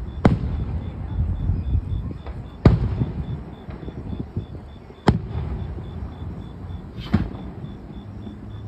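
Aerial firework shells bursting: four sharp booms about two to two and a half seconds apart, with a low rumble between them.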